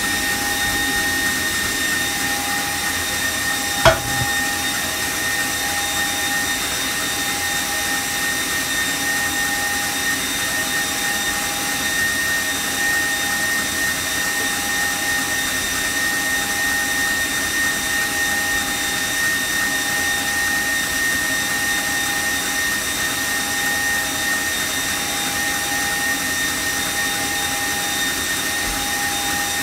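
Electric stand mixer running steadily, whipping egg batter for a sponge cake, with a constant motor whine over its hum. A single sharp knock about four seconds in.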